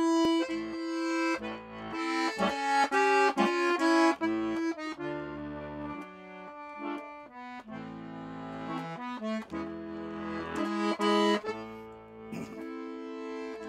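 Chromatic button accordion played solo: a slow melody over sustained chords, in phrases that swell and soften.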